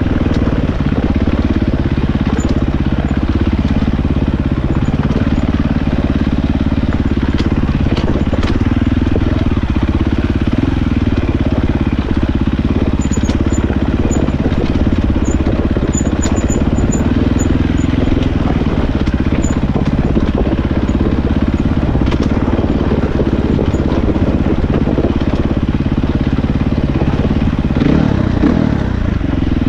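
Husqvarna 450 dirt bike's single-cylinder four-stroke engine running steadily while riding singletrack. Its pitch rises and falls a little as the throttle changes.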